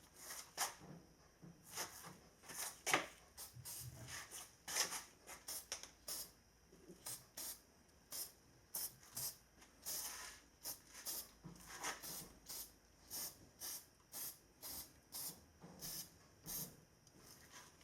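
Aerosol anti-corrosion spray hissing in a long series of short spurts, one or two a second, applied to a newly fitted car battery to keep it from corroding.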